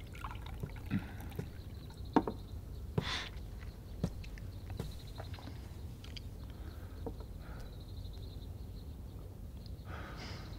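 A few soft clinks of porcelain teacups being handled on a table, over a steady low room hum.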